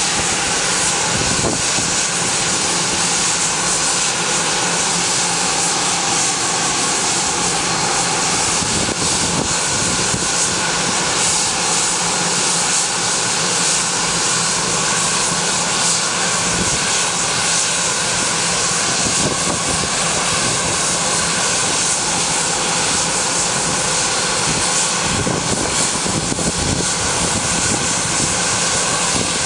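Bombardier Global Express business jet's Rolls-Royce BR710 turbofans running at ground idle: a steady whine with several held tones over an even rushing noise.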